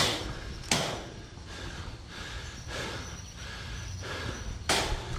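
Airsoft gunfire: sharp single cracks, with loud ones at the very start, a moment later and near the end, and fainter ones in between.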